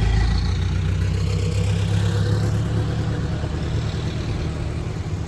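Truck engine running steadily, easing off slightly toward the end.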